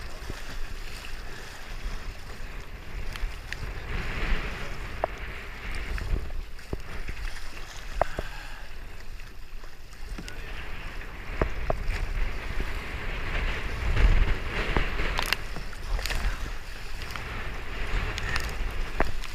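Kayak paddling through choppy swells: water splashing against the bow and paddle blades in uneven surges, with wind buffeting the microphone and now and then a sharp click or knock.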